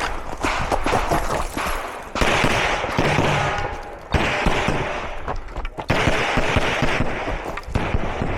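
Handgun shots fired in quick succession, many closely spaced reports with echoes running into one another, with a few louder shots about two, four and six seconds in.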